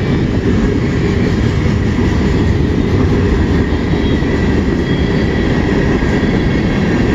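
Mixed freight train cars rolling past close by: a loud, steady rumble of steel wheels on the rails, with a faint steady high whine above it.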